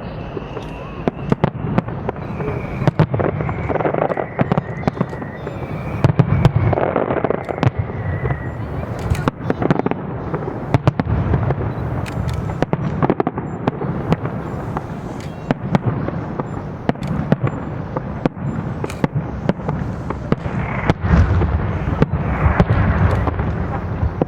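Big aerial fireworks display: a dense, continuous run of bangs and crackling over a low rumble, with high whistling tones through the first third.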